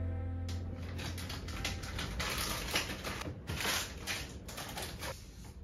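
Background music cutting off about half a second in, then irregular rustling and light clicks of things being handled and sorted on a desk.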